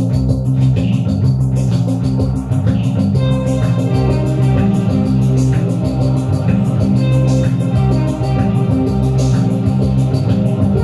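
Rock music with electric guitar, bass and drums, played back from tape on a Fostex Model 20 reel-to-reel recorder.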